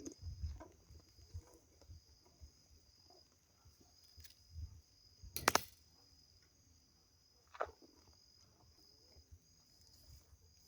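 Faint, steady high-pitched chirring of insects, with a few scattered soft knocks and one sharper click about halfway through.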